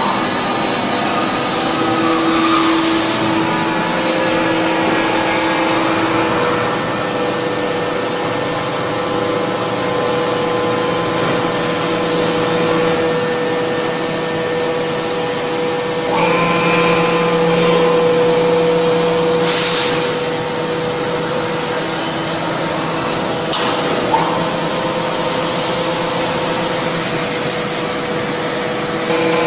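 Particle board production line machinery running near the multi-layer hot press: a loud, steady mechanical drone with a constant hum. Two short hisses come through, one a few seconds in and one about two-thirds of the way through.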